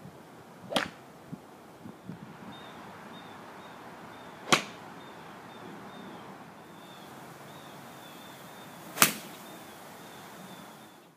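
Golf club striking a ball off a driving-range mat: three sharp strikes, about four seconds apart, over a steady outdoor hiss.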